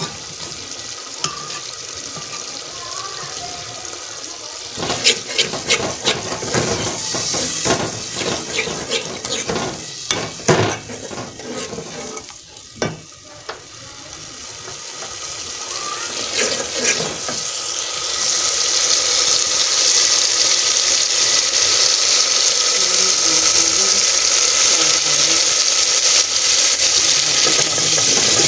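Tomato-onion masala sizzling in an aluminium pot, with a steel ladle clicking and scraping against the pot from about five seconds in until about twelve seconds. From about eighteen seconds the sizzling grows louder and holds steady.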